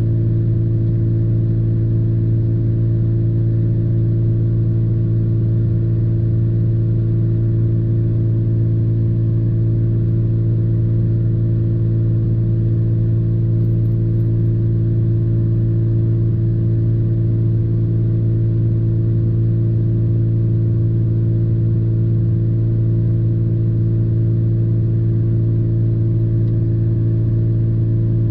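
Parked vehicle running, heard from inside the cabin as a steady, unchanging low hum.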